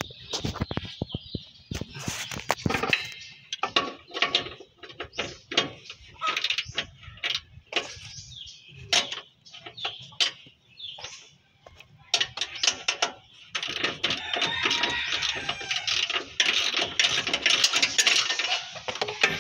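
Hand tools working on the bolts of a Suzuki Carry's lower suspension arm: a run of separate metallic clicks and knocks, turning into about five seconds of dense, rapid clicking near the end.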